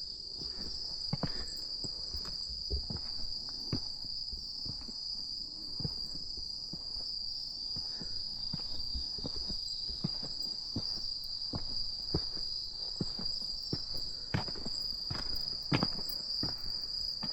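Steady, high-pitched chorus of night insects such as crickets, droning without a break, with scattered light clicks and taps over it.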